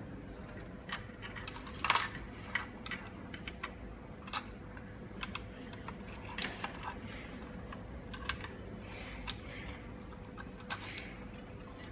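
Irregular light clicks and taps of a screwdriver and small metal parts while screws are driven into an LED light fixture's heatsink and wire terminals, the loudest about two seconds in.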